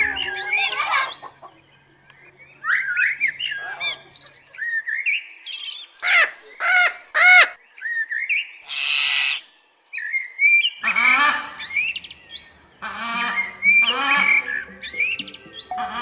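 Parrots calling: quick chirps and gliding whistles, then a few sharp arched calls and a harsh screech, and from about eleven seconds in a string of rough, grating squawks.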